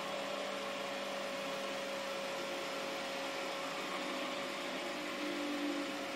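Steady background hiss with a faint, even electrical hum: room tone, with no distinct event.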